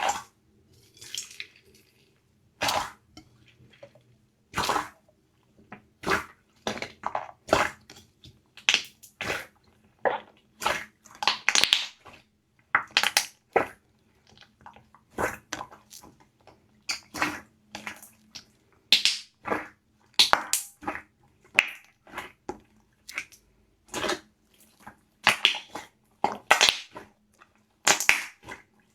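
Slime being squished and poked by hand: a string of short, irregular wet squishes and crackles, about one or two a second.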